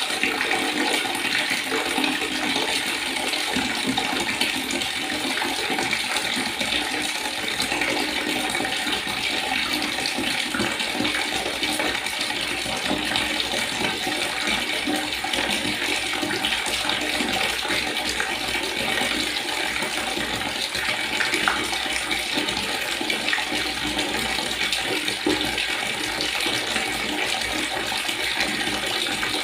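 River water flowing, a steady, even rush of water with no breaks.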